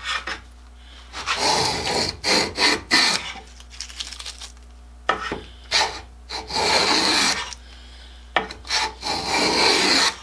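Restored wooden-soled transitional hand plane pushed along the edge of a pine board in about five strokes, each up to a couple of seconds long, its freshly sharpened iron cutting shavings from the wood.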